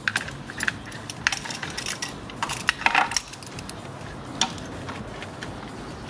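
Metal pliers clicking and clinking as they are handled and worked around a hose clamp: a run of sharp clicks over the first three seconds, the loudest a little under three seconds in, then one more about four and a half seconds in.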